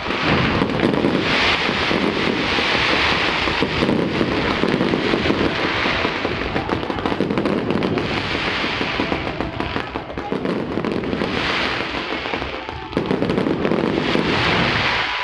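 Fireworks going off: a dense, continuous crackle of many small bursts overlapping, with no gap between them.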